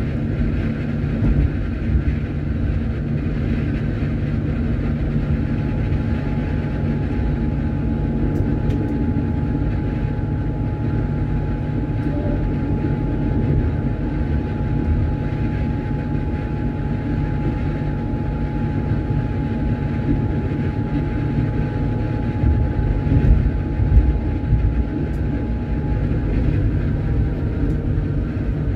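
Electric tram running along its track, heard from the cab: a steady rumble of wheels on rails with a high, even whine through most of the run. The rumble jolts louder for a moment a little before the end.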